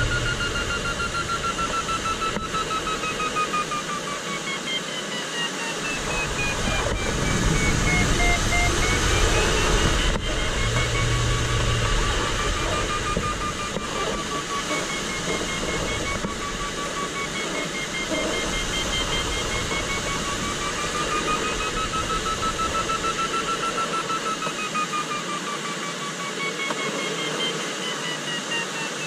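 Glider variometer beeping, its pitch sliding up and down as the climb rate changes while circling in rough, uneven lift, over steady airflow noise around the cockpit.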